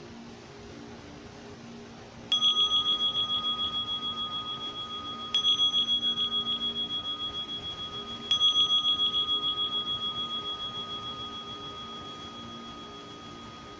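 A meditation bell struck three times, about three seconds apart; each stroke rings a high, pulsing tone that slowly fades, marking the close of the silent meditation.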